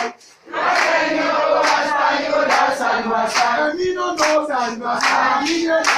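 A group of young men and women singing together, clapping their hands on the beat a little under once a second. The singing drops out for a moment at the very start, then resumes.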